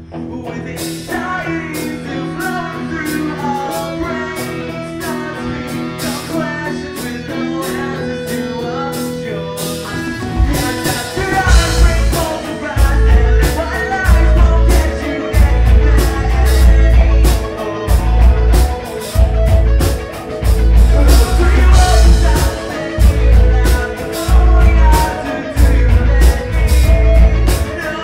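A rock band playing live, with a singer over guitars and drums. About ten seconds in, the bass and kick drum come in hard and the whole band gets louder, the low end pulsing in a heavy rhythm.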